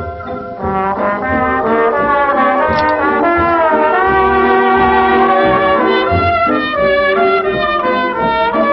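Background dance-band music: an instrumental passage led by brass, between the sung verses of the song.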